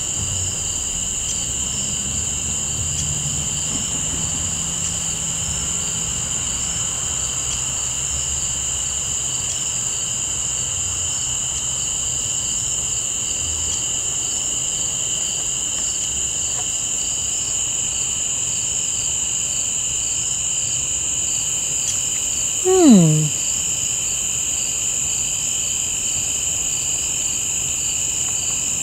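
Steady chorus of night insects such as crickets, with a faint low engine drone from the approaching diesel locomotive through the first third. About 23 seconds in, a brief, louder sound slides sharply down in pitch.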